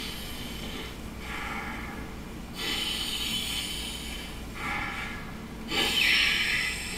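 A man breathing in hard through a face mask: about four loud, gasping inhalations in a row, the last and loudest near the end. Played from a film soundtrack on a TV in the room.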